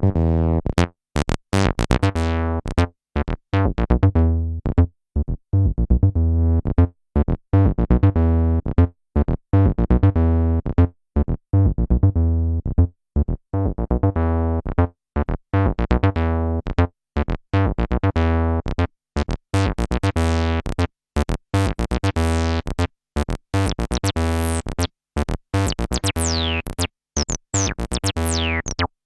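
Behringer TD-3 analog bass synth playing a sequenced acid bassline of short, detached notes. The filter opens gradually so the notes grow brighter, and near the end the resonance gives falling, whistling squelches.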